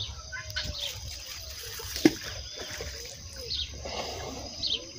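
Pond water sloshing and trickling around a magnet-fishing rope and magnet as they go back into the water, with one sharp knock about two seconds in.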